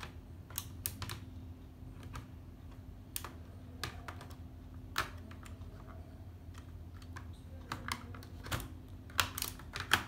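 Scattered plastic clicks and taps as a battery pack is fitted into the bay on the underside of a Dell laptop, with a few louder clicks close together near the end.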